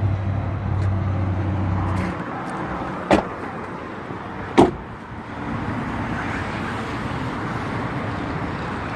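The rear door of a 2015 Ford Focus SE being shut: a sharp click about three seconds in, then the door closing with one loud knock about a second and a half later. A low steady hum stops about two seconds in, and an even outdoor background noise follows the door.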